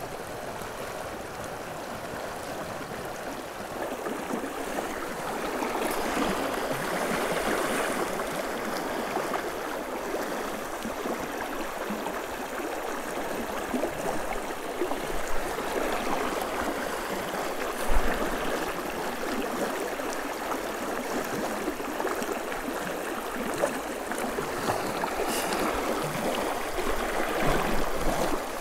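A clear, shallow mountain river rushing steadily over a rocky riffle, with a couple of brief knocks, the sharpest about two-thirds of the way through.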